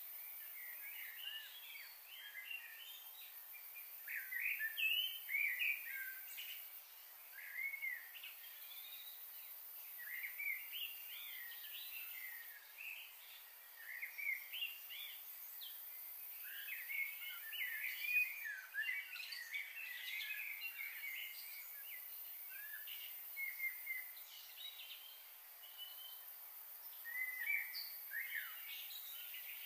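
Birds chirping and calling, many short rising and falling notes overlapping one another, over a steady high hiss.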